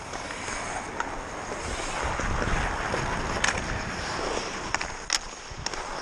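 Hockey skates gliding and scraping on ice, with wind rushing over a helmet-mounted microphone. A few sharp clacks of sticks and puck cut through, the loudest about five seconds in.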